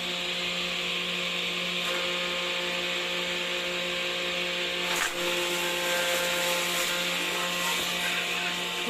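Plant shredder machine running steadily: a constant motor hum under a loud grinding hiss as it shreds leafy plant material, with one brief knock about five seconds in.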